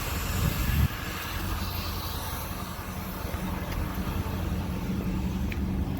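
Steady low engine hum, louder for about the first second, then even.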